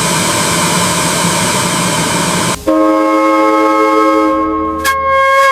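A steady hissing train noise that cuts off abruptly about two and a half seconds in. A train whistle then sounds several notes at once as one held chord.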